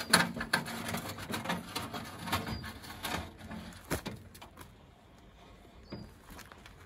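Hand-cranked trailer winch being wound in under load, its ratchet clicking in quick, irregular runs that thin out after about four seconds.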